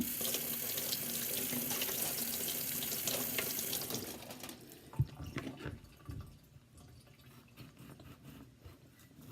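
Kitchen sink tap running, rinsing cut potatoes, then shut off about four and a half seconds in. A sharp knock follows, then a few softer knocks.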